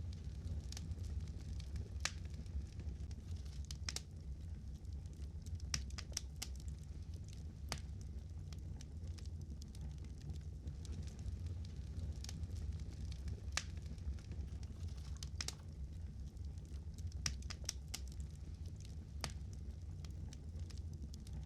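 Wood fire crackling: sharp pops and snaps at irregular intervals over a steady low rumble.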